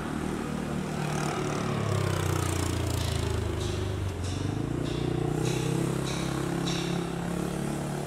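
A motor vehicle's engine running close by, its pitch sinking and then climbing again as it moves.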